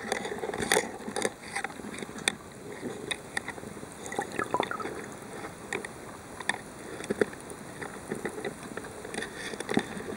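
Underwater sound picked up by a submerged camera: a steady wash of water with scattered, irregular clicks and crackles.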